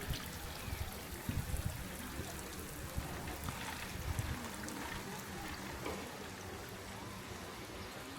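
Brine trickling and dripping steadily down the blackthorn brushwood walls of a salt graduation tower, with many small scattered drip sounds.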